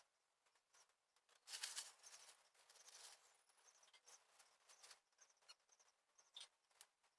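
Faint handling sounds: scattered light clicks and ticks, with a scraping rustle starting about a second and a half in that fades over the next few seconds.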